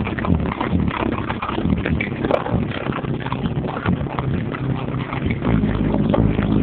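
Car audio subwoofers in a ported box pounding out bass-heavy music at high volume, heard distorted through a phone's microphone.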